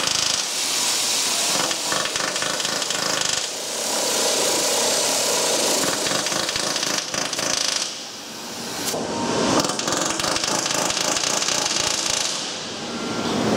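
Dense, continuous rapid hammering and rattling of pneumatic tools on an assembly shop floor. It dips briefly about eight seconds in and again near the end.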